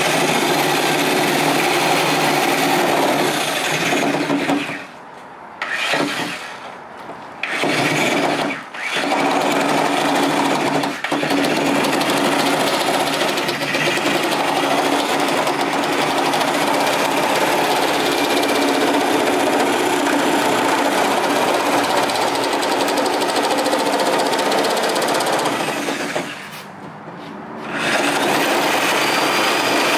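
Reciprocating saw cutting through a plastic fender-flare trim piece, running in long stretches with a few short stops a few seconds in and one near the end.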